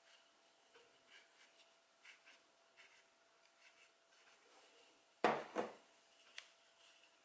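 Faint rustling and scratching of polyester hollow-fibre stuffing being packed into a small crocheted toy body with metal tweezers. About five seconds in there are two louder knocks in quick succession.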